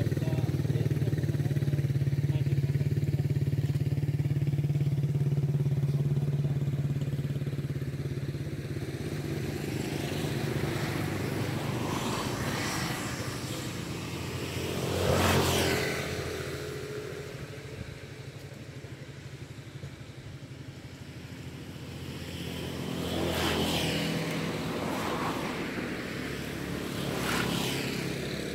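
Motorcycle engines running: a steady engine hum at first, then passes that swell and fade, the loudest about halfway through, with two smaller ones near the end.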